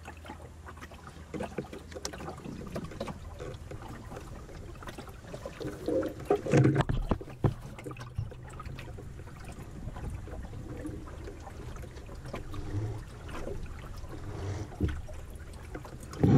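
Water trickling and lapping along the hull of a small open sailing dinghy under way, over a low steady rumble. There is a short cluster of knocks and louder sloshes about six to seven seconds in.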